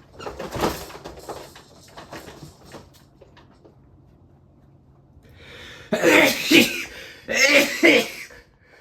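A man coughing and sneezing: one burst about a second in, then two loud, drawn-out voiced fits near the end.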